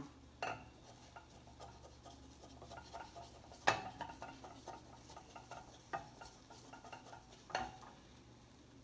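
Wooden spatula stirring and scraping egg around a frying pan: a steady patter of small clicks against the pan, with a few sharper knocks.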